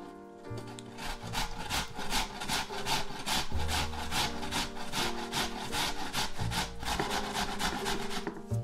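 Raw potato rubbed down a stainless steel box grater in quick, even rasping strokes, several a second, starting about a second in.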